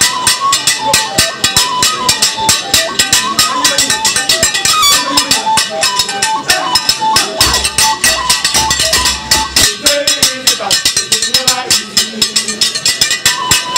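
Music of fast, steady drumming with a melody of short notes over it.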